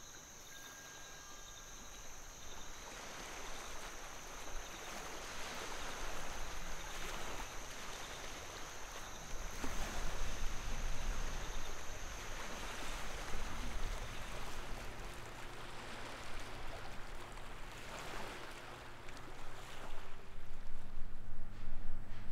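Sea waves washing in over a rocky shore, surging and falling back every few seconds, with a steady high thin whine for the first part and a low steady hum coming in about two-thirds of the way through.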